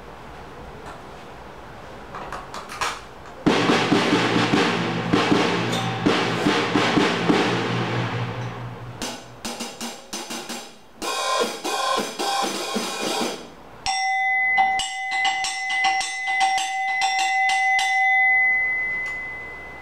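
PDP by DW drum kit with Remo-made heads being played. A few light knocks come first. About three and a half seconds in, loud drumming starts, with a deep ringing low tone under it, followed by separate hits and fills. From about fourteen seconds a steady ringing tone holds under the hits and fades out near the end.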